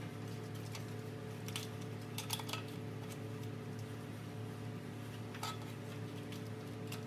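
Light metal clinks and knocks, a few at a time, as a steel engine mount is worked down into place in a truck's engine bay, over a steady electrical hum.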